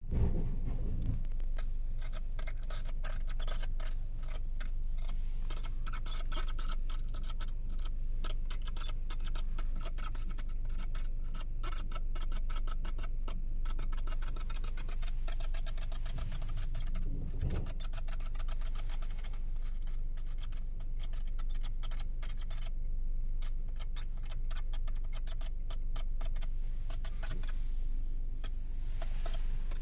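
Rapid creaking clicks from the steering of a Tenet T4 crossover as the steering wheel is turned, over a steady low hum.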